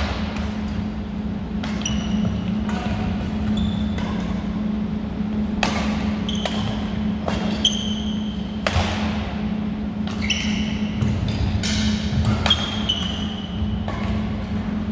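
Badminton rally: sharp pops of rackets striking the shuttlecock about once a second, with short squeaks of sneakers on the hardwood gym floor, over a steady low hum in the hall.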